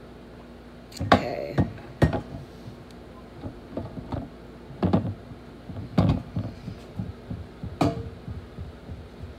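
Irregular knocks and clatter of kitchen items being handled on a wooden counter, about half a dozen sharp ones spaced unevenly, over a faint steady hum.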